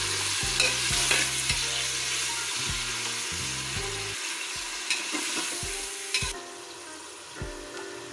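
Chicken pieces sizzling as they fry in hot oil in a pressure cooker, with a metal ladle clicking and scraping against the pot as they are stirred to brown. The sizzle gets quieter about six seconds in.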